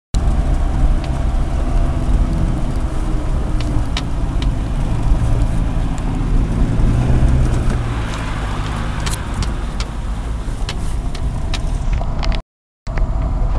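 Off-road 4x4 engine running at low speed, heard from inside the cab as it drives over a rough dirt track, with knocks and rattles from the vehicle. The engine note rises briefly about halfway through, and the sound cuts out for a moment near the end.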